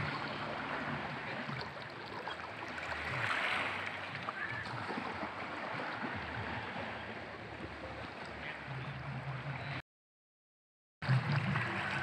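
Small waves lapping and washing against shoreline rocks in a steady wash of water noise. The sound drops out completely for about a second near the end.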